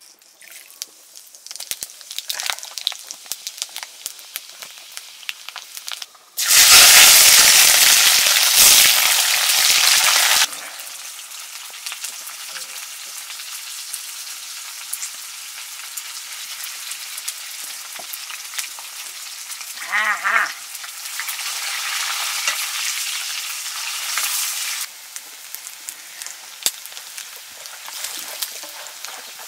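Food frying in hot oil in a pan, sizzling and crackling. About six seconds in the sizzle jumps suddenly to a loud hiss for some four seconds, then settles back to a steady sizzle that eases off near the end.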